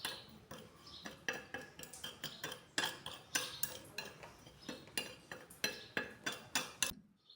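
A utensil stirring in a mixing bowl, clinking and scraping against its side in irregular strikes about two or three a second, then stopping suddenly near the end.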